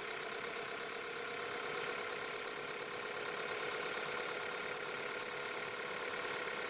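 Overhead-cam engine running at 14,000 RPM, its valvetrain giving a fast, even ticking over a steady mechanical hum.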